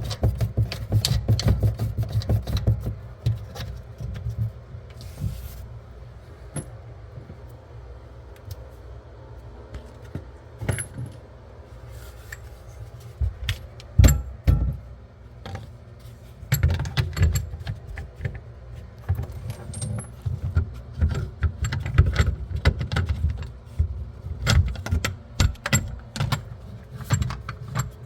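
Small hard objects clinking and rattling, with handling knocks and a low rumble. It is busy at first, thins out for a long stretch, then picks up again about halfway through.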